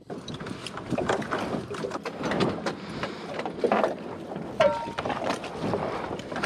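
Water lapping and sloshing around an inflatable dinghy against a sailboat's hull, with small knocks and bumps from handling and one short squeak about two-thirds through.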